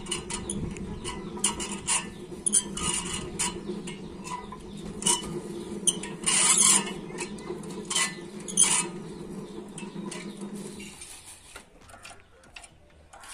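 Hand-cranked coffee pulping machine turning steadily with a low whir while it pulps fresh coffee cherries, separating the beans from their skins. Beans and pulp rattle and clink into a steel bowl, with a few sharper clanks. The cranking stops near the end.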